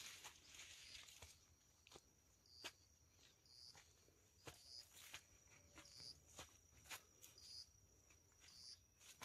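Near silence: faint footsteps on dirt, over a thin steady high insect trill, with a short high chirp repeating about once a second.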